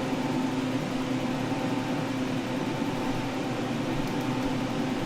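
Steady mechanical hum with a low held drone and a faint hiss, as from a small fan or motor running.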